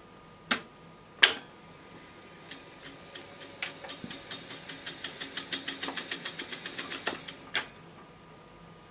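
Technics RS-1506U reel-to-reel tape deck: two transport buttons clunk, then the tape winds back with a run of ticks that speed up, and a last clunk stops the transport.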